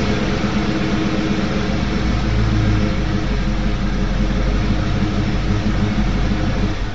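Stock-exhausted 1995 Ford Mustang GT 5.0-litre (302) V8 running at a steady idle with a low rumble, settled back down after a rev.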